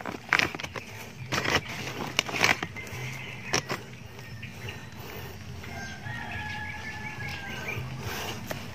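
Several short rustling bursts of okra leaves brushing against the phone in the first few seconds, then a rooster crows for about two seconds in the background.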